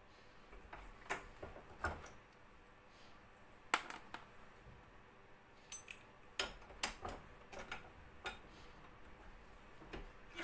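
Light metal clicks and knocks at irregular intervals as a BBQ gas regulator and its brass fittings are handled at a steel bench vise, the sharpest knock about four seconds in and a quick run of clicks a little past halfway.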